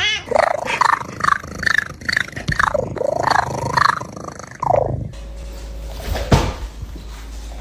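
A cat making a rapid series of short, pitched calls, about two to three a second, for roughly four and a half seconds. After the calls stop there is a low steady hum and a single sharp click.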